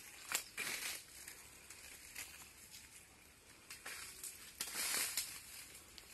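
Footsteps crunching and rustling through dry grass and leaves: a few irregular soft crunches, the longest about five seconds in.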